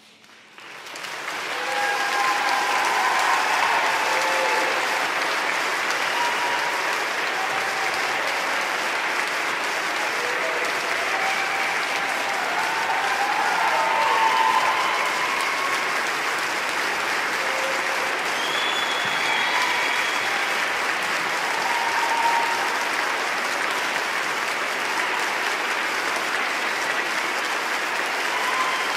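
Audience applauding at the end of a figure skating program. The clapping swells within about the first second and a half and then holds steady, with scattered voices calling out over it.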